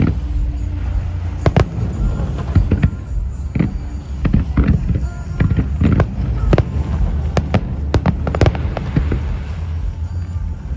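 Aerial fireworks shells bursting in an irregular rapid series of sharp booms and cracks, about a dozen in all, over a steady low rumble.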